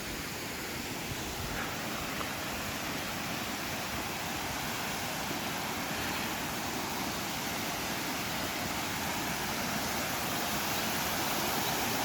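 Waterfall rushing: a steady, even roar of falling water, growing slightly louder toward the end.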